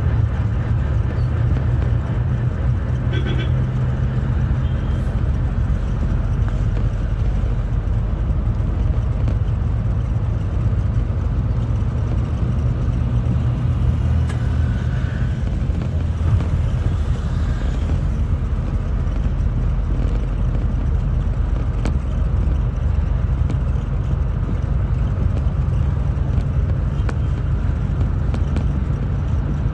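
Steady low rumble of road traffic or a running motor vehicle, even in level throughout.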